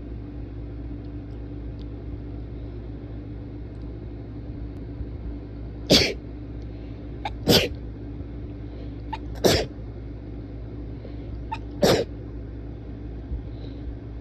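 A person sneezing four times in quick succession, an allergy sneezing fit. The sneezes are sharp and powerful, starting about six seconds in and coming every one and a half to two and a half seconds.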